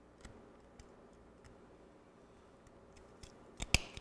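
Plastic clicks as a remote control's circuit board is handled and pressed into its plastic case: a few light ticks, then two loud, sharp clicks close together near the end.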